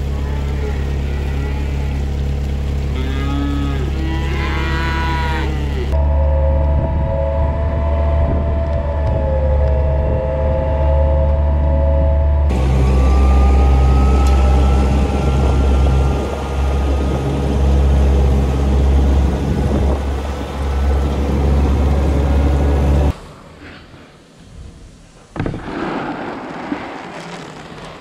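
Calves mooing a few times over the steady hum of a ride-on calf milk cart's motor. The motor keeps running as the cart drives on, then the hum cuts off abruptly near the end, leaving quieter scattered knocks.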